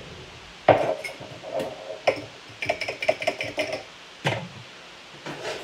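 Kitchen handling noise off camera: a sharp knock about a second in, then a run of light clicks and clatter of dishes and utensils, and another knock a little later.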